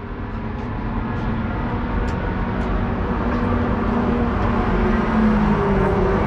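BMW race car's engine idling, heard inside its stripped cabin, the steady engine note wavering slightly and growing gradually louder.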